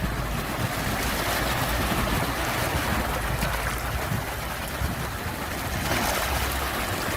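Ocean waves washing in a steady surf, with a low rumble beneath and a wave swelling about six seconds in.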